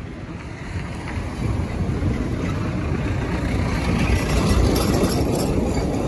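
Wind buffeting the microphone on a moving bike, with road noise. It grows louder about halfway through and eases slightly near the end.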